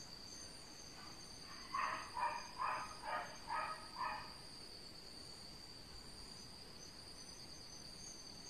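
Steady high-pitched drone of forest insects, with a run of six short pitched calls, about two a second, starting a little under two seconds in.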